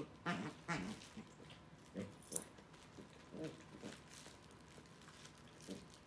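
Corgis grunting and growling softly in play while tugging a plush toy together. There are two quick pitched grunts near the start, then a few shorter, lower grunts spread through the rest.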